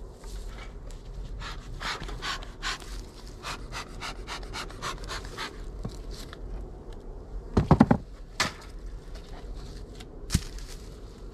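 Bee smoker bellows puffing again and again, about two to three puffs a second, as smoke is blown into a hive entrance. Later a loud cluster of hard knocks, and near the end one more sharp knock, as the bricks and lid on the hive are handled.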